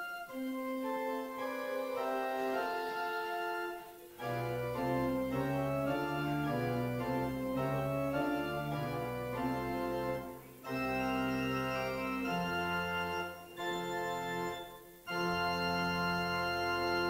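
Church organ playing slow, sustained chords in phrases, with short breaks between them.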